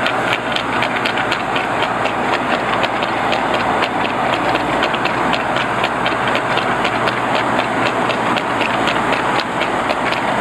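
Trotting horse's shod hooves striking the tarmac in a quick, even rhythm as it pulls a sulky, over the steady running of the escorting vehicles' engines and tyre noise.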